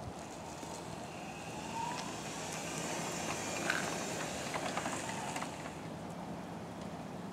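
Permobil F3 Corpus power wheelchair's electric drive motors whining as it drives over concrete, over a steady hiss, with a rising whine about a second in.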